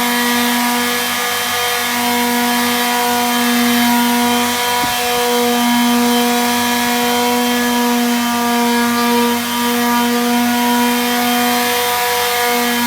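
Electric power tool motor running steadily with a high hum, smoothing the edge of an acrylic sheet. The hum briefly falters a couple of times as the tool takes load.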